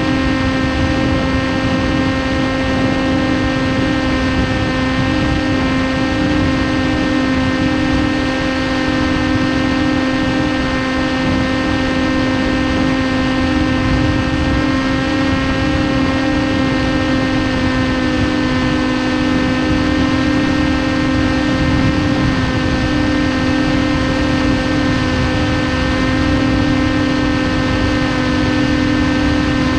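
The single electric motor and propeller of a TBS Caipirinha 2 flying wing running at steady cruise throttle, giving an even whine that holds its pitch, over a steady rush of air.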